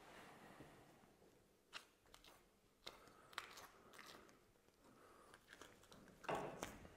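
Near silence broken by faint, scattered crackling clicks of a small skinning knife, the Puma IP Roka, cutting the hide free along a roebuck's neck, with a slightly louder rustle near the end.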